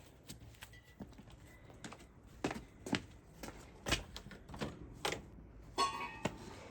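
Irregular sharp knocks and clicks from hand work, a few at a time, with a brief squeak near the end.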